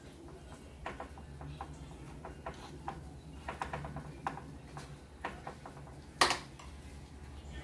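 Small clicks and scrapes of a metal spoon and fork working mashed potato filling into potato skins on a metal baking tray, with one sharper clink about six seconds in.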